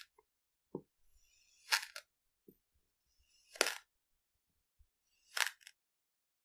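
Plastic knife slicing through packed kinetic sand: a short, crisp, gritty crunch about every two seconds, three or four cuts in all.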